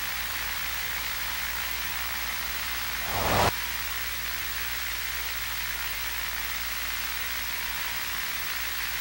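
Steady analog TV static hiss. About three seconds in, the static swells louder for half a second and then cuts off abruptly back to the steady hiss.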